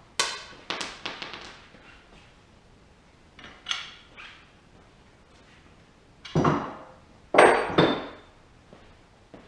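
Steel parts of a JD2 Model 32 tubing bender clinking and clanking as they are handled and set down. A ringing clink and a few quicker knocks come at the start, another knock about four seconds in, then a heavier thunk and a ringing clank near the end.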